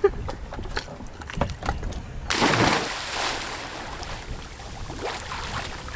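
A few knocks and bumps, then about two seconds in a sudden rush of water noise that slowly eases off: water sloshing and rushing in a strong current.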